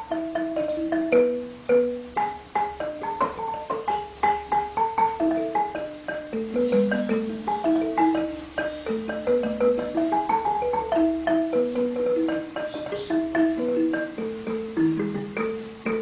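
Background music: a melody of short, ringing struck notes following one another at an even pace.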